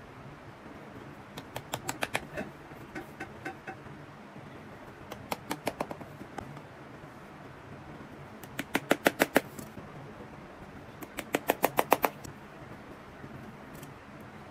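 Lasting pliers' hammer head tapping tacks into a leather boot upper on a shoe last: short runs of quick sharp taps, about five runs, several taps each.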